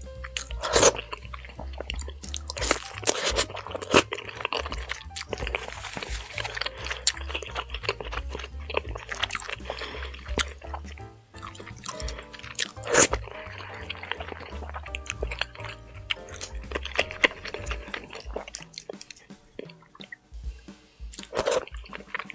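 Close-miked eating sounds: fingers squishing through thick soup and wet chewing of fufu and soup, with several sharp, sticky smacks. Background music plays under them.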